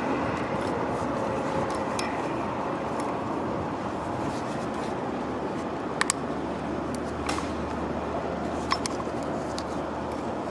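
A few sharp metallic clicks, several seconds apart, as a snap ring is worked onto the shaft of a forklift mast sheave. A steady background noise runs under them.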